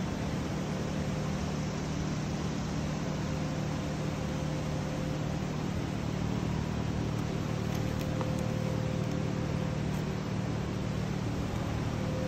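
Steady low mechanical hum under an even hiss, unchanging throughout, from a building's air-handling system running.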